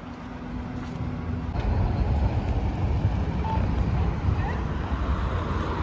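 Low rumble of a passing vehicle, swelling about a second and a half in and holding steady.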